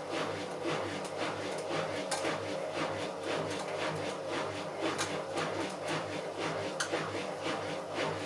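Bauknecht WA Plus 844 washing machine running with a steady hum and a stream of irregular clicks and knocks, several a second, from a drum with a damaged bearing.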